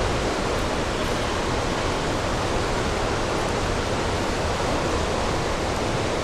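Steady rushing of flowing creek water, with the creek running high.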